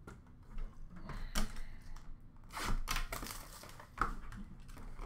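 A cardboard trading-card box being picked up and handled on a counter: light irregular knocks, taps and rustles.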